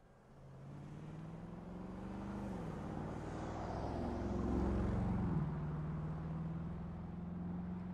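Bentley Continental GT V8 S's twin-turbo 4.0-litre V8 engine running under load, fading in at the start. Its note dips about two and a half seconds in, climbs to its loudest around the middle, then drops sharply a little past five seconds and holds steady.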